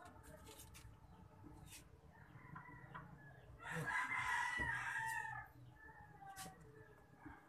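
A rooster crows once, about halfway through, lasting under two seconds.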